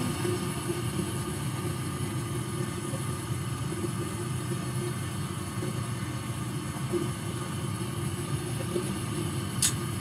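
Gas furnace draft inducer fan running with a steady low hum while the hot surface igniter heats up during the ignition sequence. A single sharp click comes near the end as the gas valve opens.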